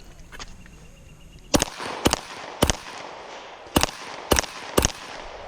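Six pistol shots from a stock service pistol, fired in two strings of three. The first three come about half a second apart starting about one and a half seconds in, then after a pause of about a second three more follow at the same pace: a timed course of fire in an IDPA stage.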